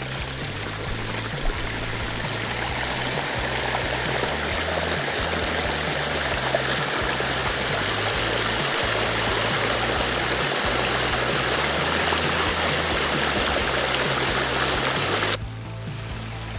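Water running and splashing over stone from a garden water feature, under background music with a low bass line. The water sound grows over the first few seconds and cuts off suddenly near the end.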